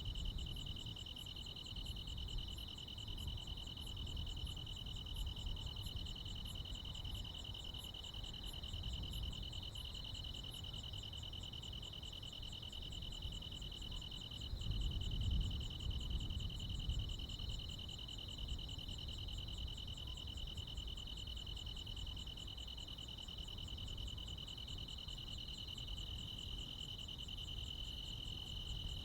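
Chorus of crickets and other insects on a summer night: a steady, unbroken trill with faster high-pitched pulsing above it, and a separate high chirp repeating about twice a second that stops about a third of the way through. A low rumble runs underneath.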